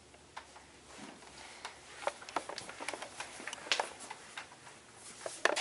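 Irregular series of sharp clicks and taps, several a second, with the loudest cluster near the end.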